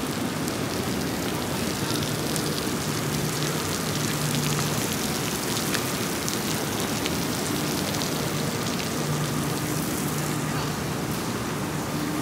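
Steady hiss of light rain falling on wet paths and grass, with faint ticks of drops.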